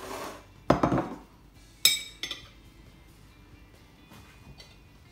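Dishes handled on a worktop: a soft scrape, then a dull knock under a second in, then a sharp ringing clink about two seconds in with a smaller clink just after.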